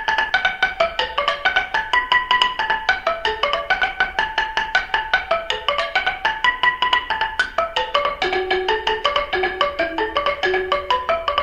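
Background music: a quick, running melody of short struck notes, with a lower part joining about two-thirds of the way through.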